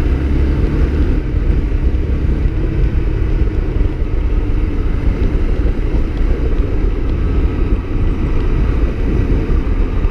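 Honda CB Twister's 250 cc single-cylinder engine running under way, mixed with a steady, loud low rumble of wind and road noise on the helmet camera.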